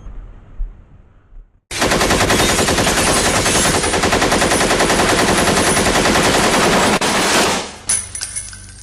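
Rapid automatic gunfire: one sustained burst of about six seconds that starts suddenly, with shots in quick even succession, then trails off near the end.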